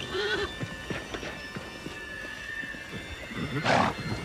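Horses vocalising: a brief low call near the start and a breathy snort just before the end, with faint background music underneath.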